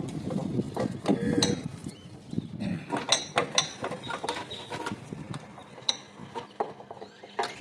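Irregular clicks, knocks and clunks of metal parts as a power steering pump is worked loose and lifted out of a car's engine bay.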